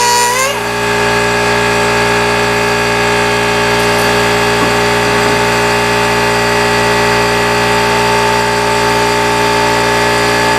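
Quarter-inch pneumatic die grinder with a cut-off wheel cutting through a Dana 44 carrier bearing: a steady high whine whose pitch climbs back up at the very start, then holds steady.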